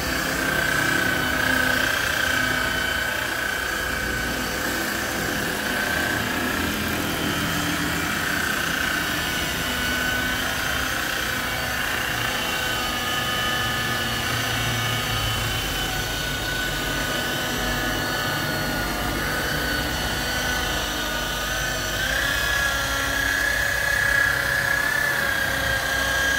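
Handheld electric rotary car polisher running steadily while its pad is pressed against a car door panel. Its motor gives a steady high whine whose pitch shifts slightly up and down.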